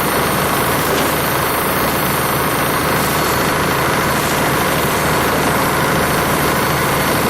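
Skorpion 350 EBG wood chipper running steadily, its engine and rotor giving a constant loud drone with no changes in pace.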